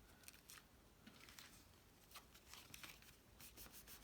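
Faint rustling and light ticks of folded cardstock being handled as a pop-up card is closed, with a quick cluster of rustles about three and a half seconds in.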